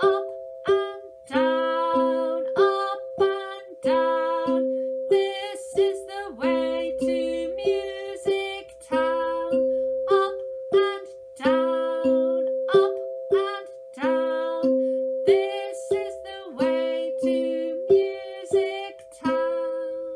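A tuned percussion instrument struck with two ball-headed beaters, playing a simple tune as a run of ringing notes, about two a second, that move up and down in pitch, while one middle note rings on throughout.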